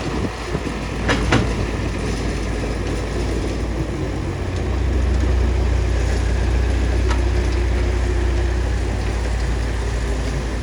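Bulldozer's diesel engine running with a steady low drone that gets louder about four and a half seconds in, with two short knocks about a second in.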